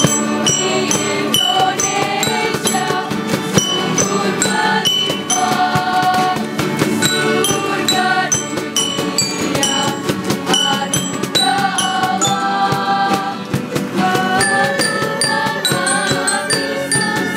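Background music with a quick, steady percussion beat under sustained mid-range melodic lines and short high notes.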